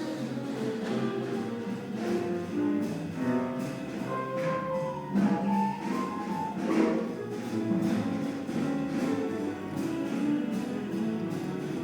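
Jazz piano trio playing: acoustic piano melody in a run of separate notes moving up and down, over double bass and drums.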